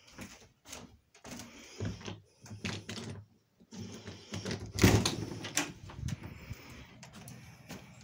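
Short knocks and footsteps, then a door being opened about five seconds in, the loudest sound.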